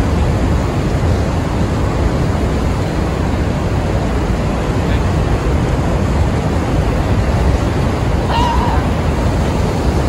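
Steady roar of rushing water from Niagara Falls.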